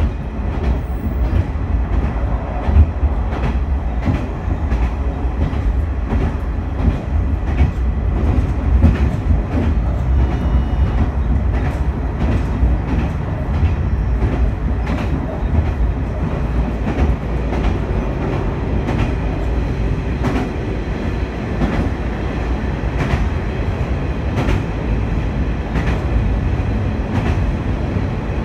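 Diesel railcar running along the line, heard from inside the car: a steady low rumble of the running train with the wheels clicking sharply over rail joints at uneven intervals.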